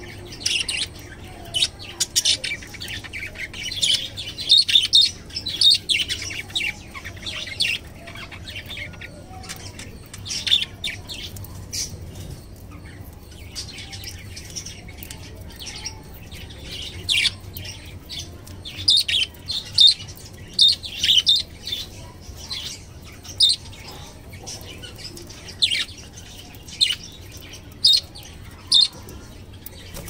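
Budgerigars chirping: many short, high chirps, a dense flurry in the first several seconds, then scattered single chirps, over a faint low hum.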